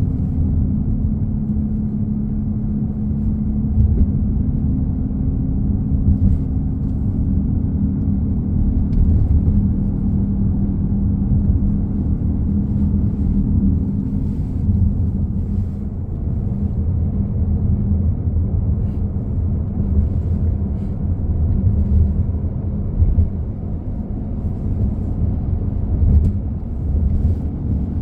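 Loud, steady low humming and rumble from the rear of a 2015 Honda CR-V Touring, with a droning tone that wavers slightly in strength.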